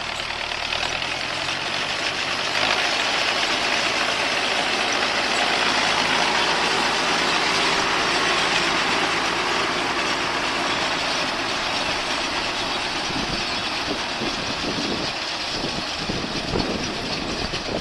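Massey Ferguson 4299 tractor running steadily while pulling a John Deere 592 round baler, the engine and baler machinery making a loud, continuous din, with a few low knocks in the last few seconds.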